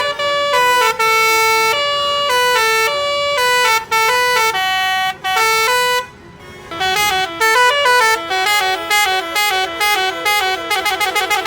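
Basuri (telolet) bus air horn playing a melody in stepped notes, with a short break about six seconds in, then quicker runs of notes turning into a fast trill near the end.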